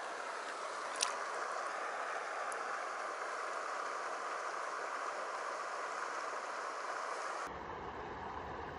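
Steady rush of flowing stream water, with a single light click about a second in. Near the end the sound shifts to a duller rumble.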